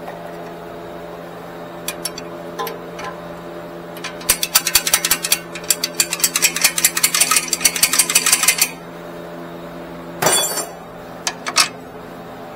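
Impact wrench hammering rapidly for about four and a half seconds as it breaks loose a 24 mm lower control arm bolt, then a shorter burst and a couple of sharp metallic clicks near the end.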